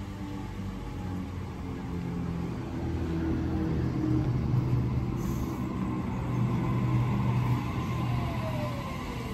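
Sydney Trains electric suburban train pulling into a station platform and slowing to a stop: a steady low hum and rumble that grows louder as the cars pass, with a falling whine near the end as it brakes.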